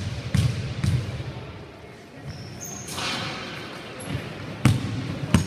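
Basketball bouncing on a gym's wooden floor: a few dribbles at the start, a pause with a short high squeak, then more bounces near the end.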